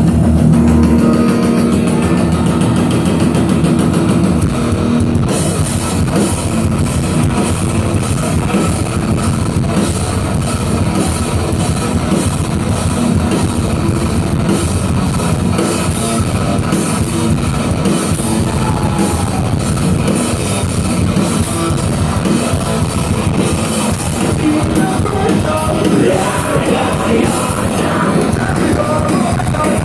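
Rock band playing live: at first guitar alone, then drums and cymbals come in about five seconds in and the full band plays on in a loud, heavy rock groove.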